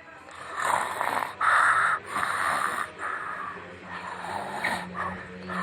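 A person snoring: a quick run of rasping snorts, about one a second, with a steady low drone under the last ones.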